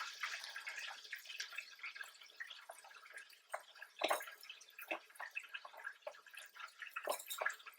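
Fried chicken sizzling and crackling in hot deep-fryer oil: a steady spattering hiss with many small pops, set going by the undercooked chicken being put back to fry longer.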